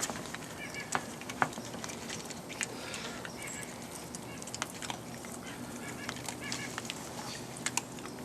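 Light clicks and rustling of aluminum bonsai wire being worked into soil and wrapped around a juniper branch, with a few sharper clicks, the strongest about a second in.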